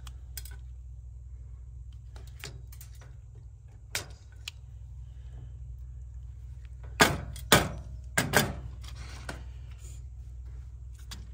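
Insulated pliers cutting and stripping the ends of thin electrical wires: light clicks, then four sharp snaps in quick succession about seven to eight and a half seconds in, over a steady low hum.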